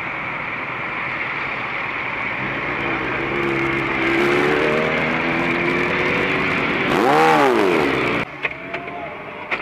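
Motorcycle engine running and revving amid street noise, with a loud rise-and-fall rev about seven seconds in; the engine sound cuts off suddenly about a second later.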